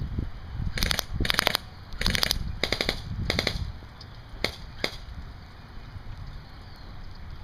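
Airsoft M733 Commando rifle firing five short full-auto bursts of rapid clicking shots, then two single shots, with wind buffeting the microphone.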